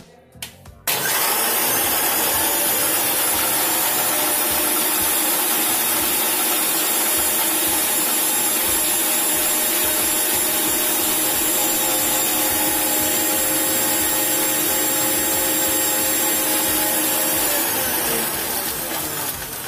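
Sujata mixer-grinder motor switched on about a second in, running steadily while its blades churn milk, ice cubes and protein powder in the blender jar, then switched off near the end and winding down.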